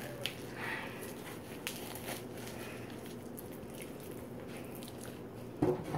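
Faint handling noises of raw pork steaks being worked over a foil pan: light crinkling with scattered small clicks, and a louder knock near the end.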